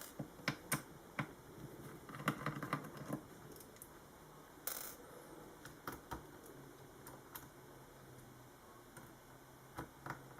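Scattered small clicks and taps of a screwdriver and tiny screws against the plastic bottom cover of a laptop while its cover screws are removed, with a brief scrape about halfway through.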